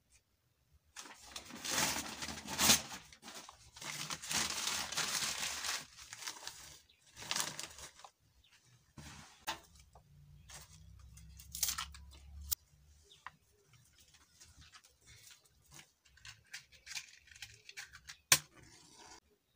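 Crumpling and rustling of paper or plastic kindling and sticks being handled at a three-stone hearth while a wood fire is laid, in rough bursts during the first several seconds, then lighter rustles and clicks, with one sharp click near the end.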